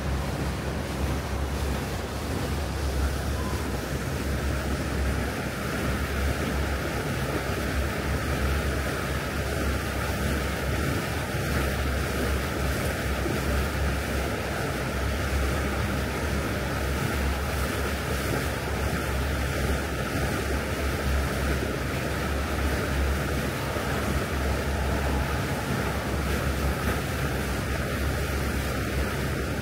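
Water taxi under way: a steady rush of wind and water against the microphone over a low, even rumble from the boat.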